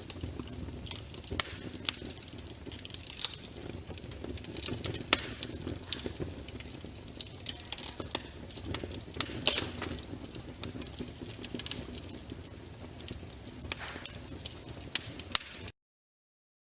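Crackling-firewood sound effect: irregular pops and snaps over a low steady hum, cutting off suddenly near the end.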